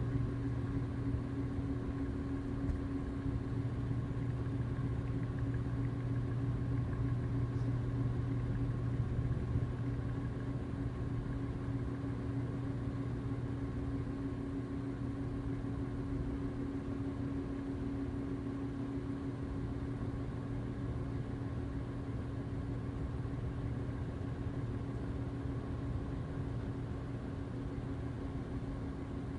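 Ceiling fan motor humming steadily, recorded up close: a low hum with a second, higher tone over a faint even hiss, unchanging throughout.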